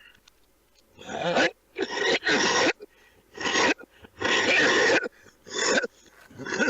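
A man coughing in a fit: about seven harsh coughs in quick succession, each under a second long, some with a groaning voiced edge.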